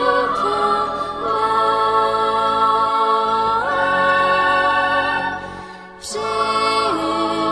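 Slow choral singing of a Christmas song: long held notes that step from pitch to pitch, with a short break about six seconds in before the next phrase.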